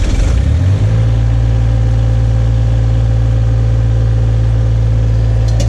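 Engine idling steadily with a deep, even hum, settling into a smooth idle just under a second in.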